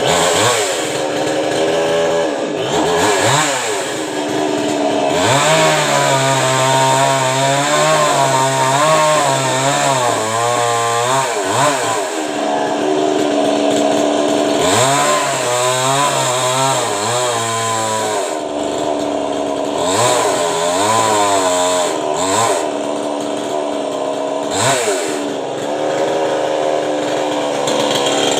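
Petrol chainsaw cutting into a coconut palm. The engine speed keeps sagging under load and picking up again.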